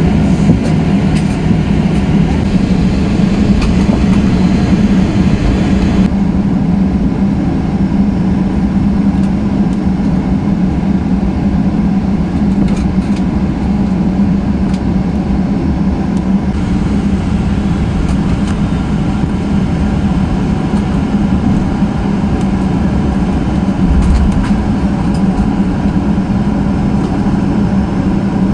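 Steady cabin noise inside a Boeing 737-800 taxiing before takeoff: the CFM56 engines at low power and the air conditioning make a constant hum with a low rumble under it. There is one low bump near the end.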